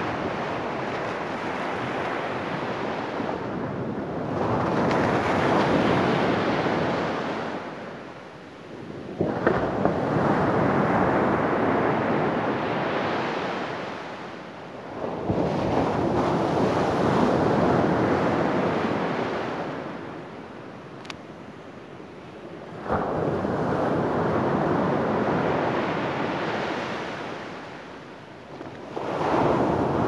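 Surf breaking on a sandy beach close by, in repeated surges every six to eight seconds: each wave comes in with a sudden crash, then the wash hisses and fades before the next.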